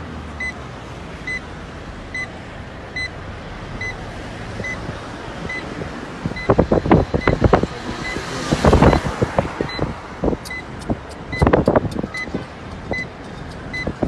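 Inside a moving car: a warning chime beeping steadily, a little more than once a second, over road noise. Loud bursts of crackling and rushing come about halfway through and again near the end.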